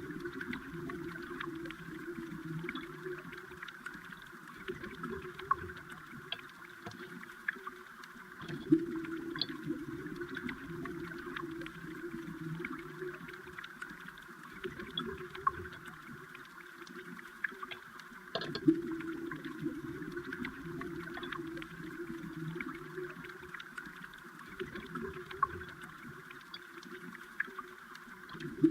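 Underwater sound of flowing water: a steady muffled rushing with scattered small clicks and ticks, and a few louder clicks, one about nine seconds in and another about eighteen seconds in.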